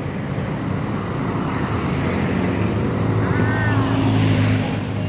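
A motor vehicle's engine running close by on the street, getting louder about three seconds in and dropping away near the end as it passes.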